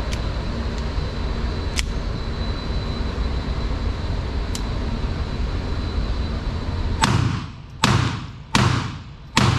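A Keltec CP33 .22 LR pistol firing four shots at a steady pace, about one every three-quarters of a second, starting near the end, each shot ringing out briefly in the indoor range. Before the shots there is a steady low rumble with a few small clicks.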